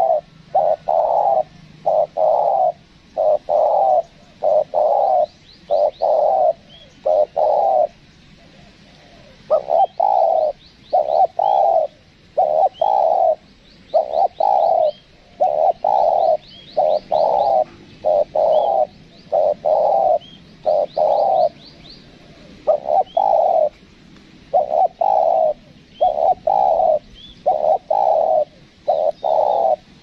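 Spotted dove cooing over and over as a lure call: runs of deep coo notes about one a second, pausing briefly a few times. Faint high chirps and trills of small birds sound behind them.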